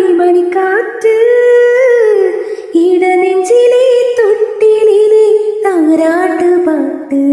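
A woman singing solo, holding long notes that glide up and down in several phrases.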